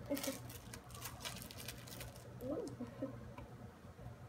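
Small cardboard toy box being torn open by hand, with scratchy tearing and the crinkle of its plastic wrapper, busiest in the first second and a half.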